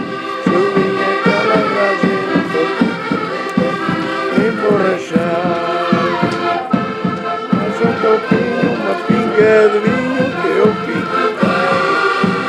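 Several concertinas (button accordions) playing a lively folk tune together, with held chords over a steady rhythmic bass pulse.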